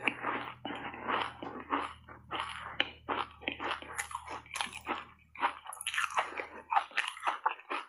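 A person chewing and crunching foam ice coated in matcha powder: rapid, irregular crunches, several a second.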